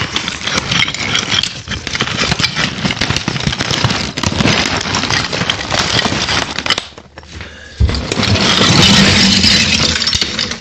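Loud, dense rubbing and scraping right at the microphone, full of small clicks. It drops away briefly about seven seconds in, then returns louder with a low rumble.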